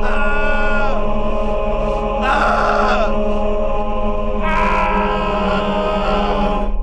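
Horror film score of low chanting voices over a sustained drone, with higher vocal swells rising three times, about two seconds apart.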